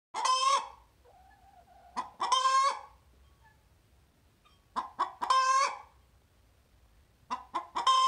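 Hen singing her egg song after laying: four loud cackles about two and a half seconds apart, each a long squawk led in by one to three short clucks.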